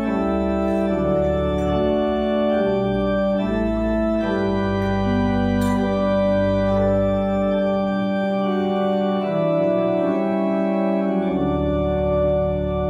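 Church organ playing a slow postlude of held chords that change about once a second. The deep bass notes drop out about eight seconds in and return about three seconds later; a single sharp click sounds about six seconds in.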